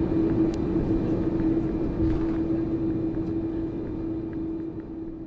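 Cabin noise of an Airbus A330 rolling on the ground after landing: a steady engine hum with one held tone over a low rumble, with a few light rattles, fading out toward the end.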